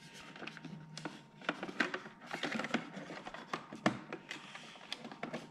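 Plastic bumper of a Neato Botvac D7 robot vacuum being worked back into place by hand: scattered light plastic clicks and taps, busiest from about one and a half seconds in, with a sharper knock near four seconds.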